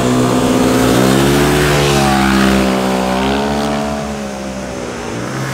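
Motorcycle engines passing close through a bend and accelerating out of it: the note climbs, dips briefly and climbs again, then drops and fades as the bikes pull away.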